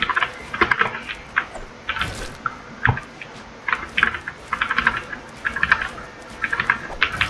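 Typing on a computer keyboard: quick runs of sharp key clicks with short pauses between the runs.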